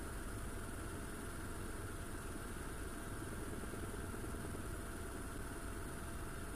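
Steady in-flight noise inside the cabin of a UH-1Y Venom helicopter with its side door open: engines and rotor running with wind rushing past, and a faint steady tone over the noise. No gunfire.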